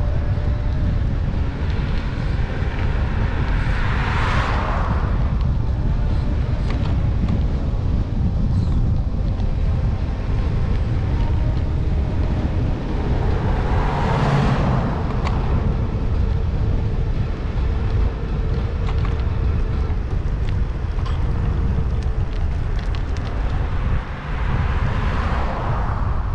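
Wind buffeting the microphone at riding speed, a steady low rumble, with three vehicles going by: about four seconds in, about halfway through, and near the end.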